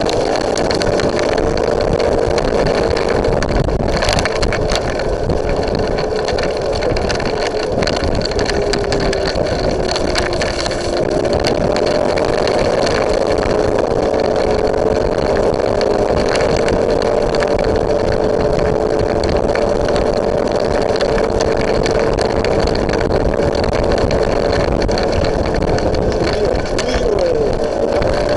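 Small motorbike engine running at cruising speed, its pitch drifting gently up and down with the throttle, under a steady rush of wind on the microphone.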